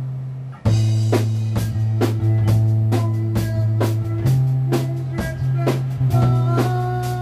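Funk-rock band of electric bass and drum kit playing: held low bass notes under steady drum hits, with a brief break about half a second in before the band crashes back in.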